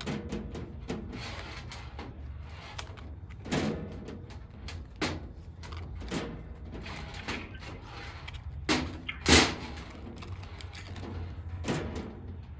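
Irregular knocks and clunks as the back panel of a Harvest Right freeze dryer is worked loose and taken off, the unit on a utility cart that rattles with it; one loud clunk about nine seconds in, over a steady low hum.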